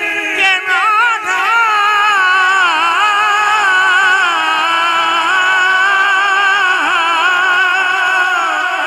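A male naat reciter singing a long, held, wordless note that bends and wavers in ornamented turns, without instruments, through a microphone and loudspeakers.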